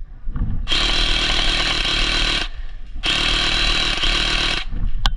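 Airsoft minigun firing two long bursts of about two seconds each, a brief pause between them. Its electric motor whines steadily under the rapid rattle of BBs.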